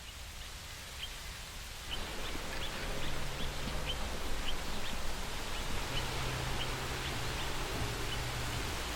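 Outdoor garden ambience: a steady rustling hiss with short high chirps repeating about every half second.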